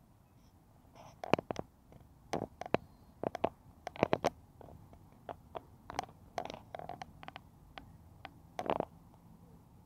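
Metal chains of a playground climbing net clinking and knocking as a small child climbs it: a string of irregular sharp clinks, well over a dozen, over a faint low rumble.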